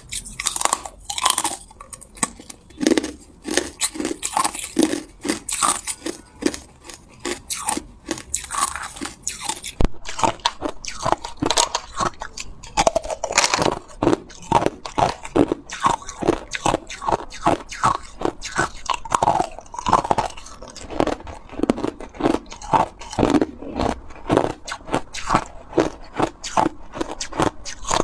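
Hard ice cubes being bitten and chewed close up: rapid, repeated crunching, the strokes coming faster in the second half.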